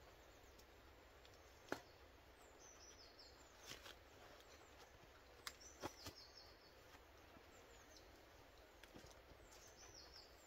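Quiet woodland with a small songbird singing short, high, falling phrases every few seconds, and a few sharp clicks and knocks, the loudest about two seconds in.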